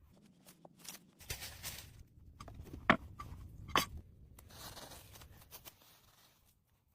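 Irregular rustling and crunching of dry plant material being handled, with two sharp cracks a little under a second apart near the middle.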